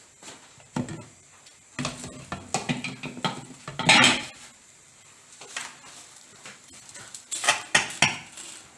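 Dishes and cutlery clinking and clattering in two bouts, the first and loudest ending about four seconds in, the second near the end.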